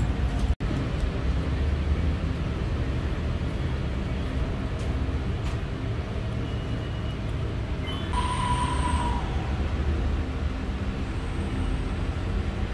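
Steady low rumble of road traffic, with a short high-pitched tone about eight seconds in.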